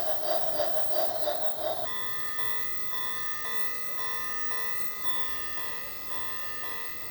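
Toy locomotive's electronic sound module. For about the first two seconds it plays a pulsing locomotive-chuff effect at about three beats a second, then switches to a steady electronic beeping tune of short repeated notes.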